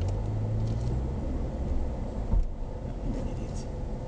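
Vehicle noise heard from inside an SUV's cabin as it pulls away and drives on: a steady low engine and road hum, with a single sharp thump about two and a half seconds in.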